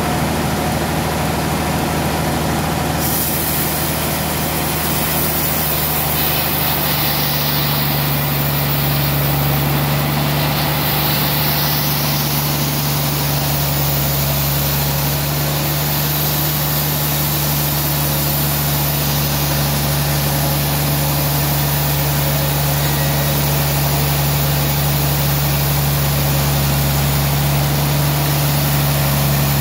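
Band sawmill running with a steady low machine hum that grows slightly stronger partway through.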